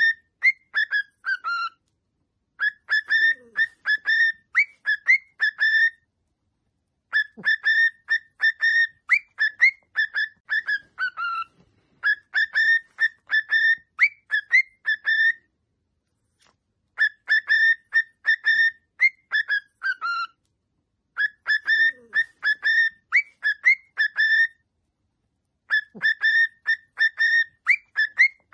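Cockatiel whistling its song: phrases of quick, short, clear notes, repeated about six times with brief pauses between them, some phrases ending on a falling note.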